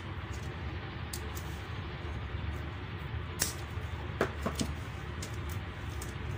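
Scattered small clicks and knocks of hands handling wiring, connectors and metal parts inside an opened inverter welding machine, the sharpest about three and a half seconds in, over a steady low background noise.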